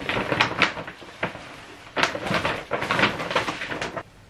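Paper gift bag and wrapping being handled and rustled, in two bouts: one brief at the start, a longer one from about two seconds in.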